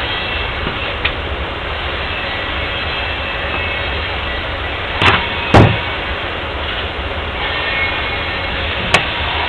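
Steady rumble of a train in the background, with sharp knocks twice about five seconds in and once more near the end.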